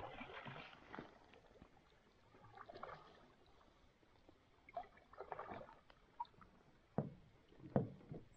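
Canoe paddle strokes in calm water, each a soft swish every couple of seconds, with two sharp knocks near the end like the paddle or gear bumping the canoe hull.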